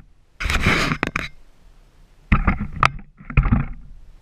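Handling noise from the camera being gripped and turned by hand: a loud rush of rubbing and scraping, then two short clusters of clicks and knocks near the end.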